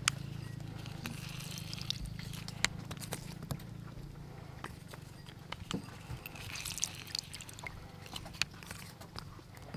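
Scattered light clicks and taps of a plastic hand-held lime squeezer being worked as lime halves are loaded, pressed and set down on a wooden chopping board.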